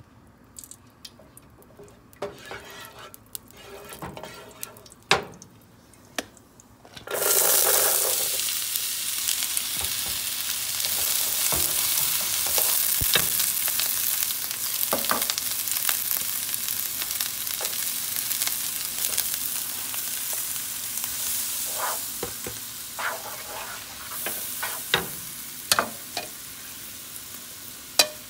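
A wooden spoon pushes melting fat around a nonstick frying pan. About seven seconds in, chopped onions go into the hot fat with a sudden loud sizzle that carries on as they are fried and stirred, with a few sharp taps of the spoon against the pan.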